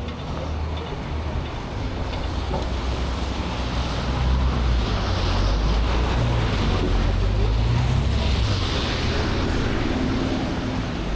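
Snowstorm wind buffeting the camera microphone: a steady rushing noise with heavy low rumble that swells through the middle of the clip.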